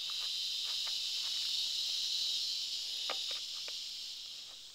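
Insects, such as crickets or cicadas, chirring with a steady high buzz that fades away near the end, with a few faint knocks about three seconds in.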